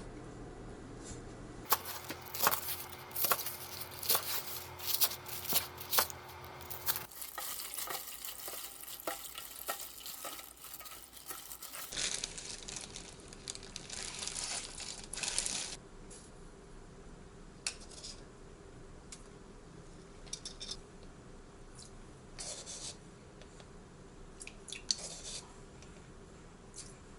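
Kitchen handling sounds over several short edited clips: quick sharp taps and clicks on dishes, then scattered crinkling and tearing noises.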